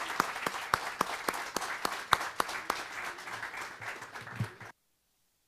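Audience applauding, with one person's loud, sharp claps close to the microphone, about three a second. The sound cuts off suddenly near the end.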